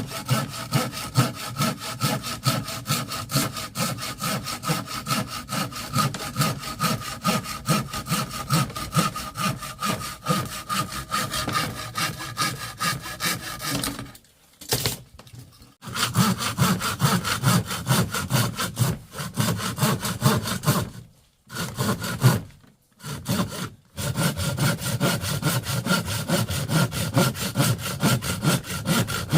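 Handsaw cutting through wood in steady back-and-forth strokes, stopping briefly a few times before carrying on.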